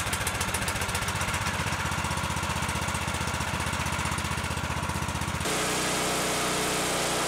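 Small single-cylinder gas engine of a Woodland Mills portable sawmill, running with an even, rapid pulse; about five seconds in it changes to a smoother, slightly louder steady note.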